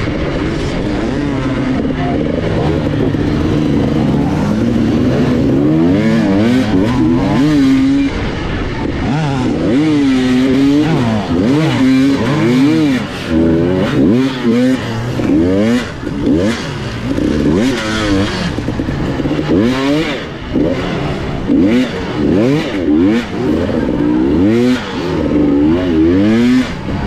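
Off-road motorcycle engine running fairly evenly at first. From about six seconds in it revs up and down over and over, the throttle opened and closed roughly once a second, as the bike is ridden hard.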